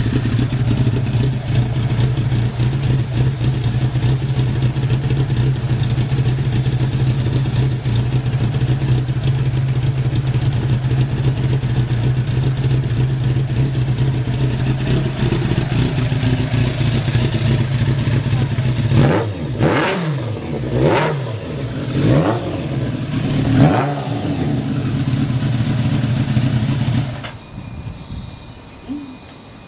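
Kawasaki ZZ-R1100 inline-four engine idling evenly, then blipped four times with quick rises and falls in revs before settling back to idle. It stops abruptly near the end. The seller describes the idle as stable with no abnormal noises.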